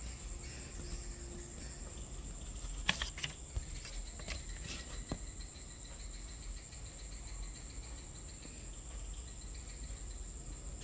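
A steady, high-pitched, insect-like trill over a low hum, with a few sharp clicks and taps between about three and five seconds in.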